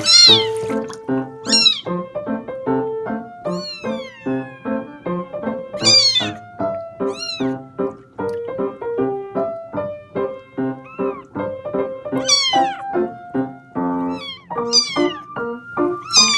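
A kitten meowing repeatedly in high, downward-falling calls, about eight of them a second or two apart, over background piano music.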